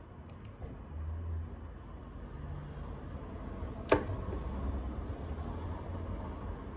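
A low, steady background rumble with a single sharp knock about four seconds in.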